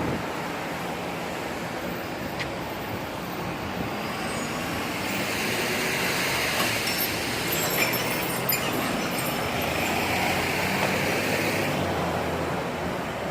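Steady rushing vehicle noise that swells through the middle and eases near the end, with a few light clicks.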